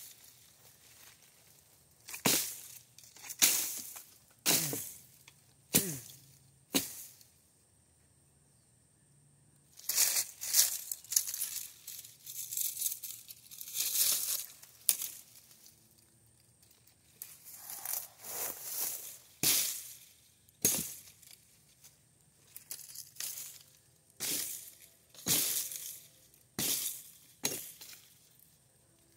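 Axe chopping into saplings and small trees: about two dozen sharp, irregular strikes, some single and some in quick bunches, with short pauses between.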